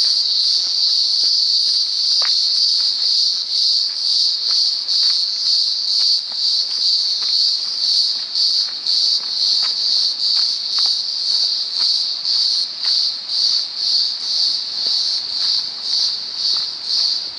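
Loud chorus of cicadas, a high-pitched buzz that swells and fades a little under twice a second.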